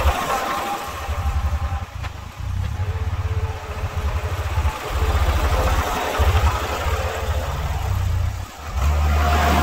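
Tractor engine running while the machine is worked, its low rumble swelling and easing every second or two.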